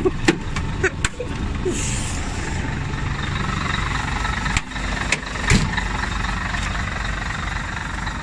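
Scania 113M 320 truck's 11-litre straight-six diesel idling steadily. A few clicks and knocks come from the cab door being worked in the first second, and two sharper knocks come about four and a half and five and a half seconds in.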